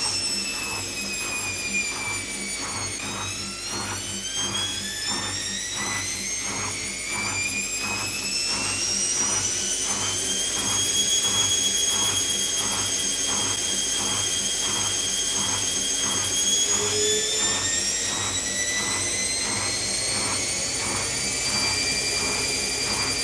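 Zanussi ZKN7120L washing machine's motor whining as the drum spins. The whine dips in pitch about three seconds in, then climbs twice as the drum speeds up, with a regular pulsing beneath it.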